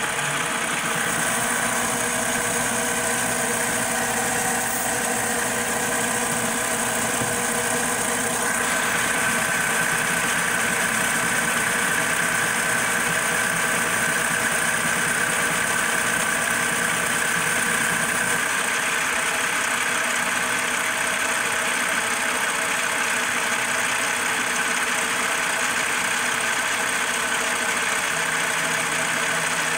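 CNC-converted manual lathe running a programmed turning pass, the spindle spinning and the tool cutting metal: a steady machine hum, with a higher steady tone that comes in about eight seconds in and holds until near the end.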